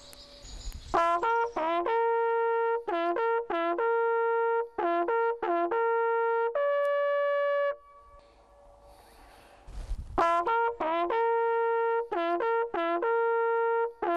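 Brass hunting horn blown in a signal call: a fanfare of short notes jumping between a few pitches and closing on a long held note, played twice with a pause of about two seconds between. The call signals the start of the drive.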